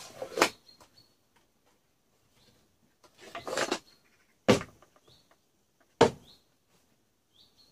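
Wooden toolbox handled: its sliding lid pushed shut with a knock, then the box is tipped up so the metal hex socket wrenches inside slide and rattle for about a second, followed by two sharp knocks of the box on the table as it is set upright.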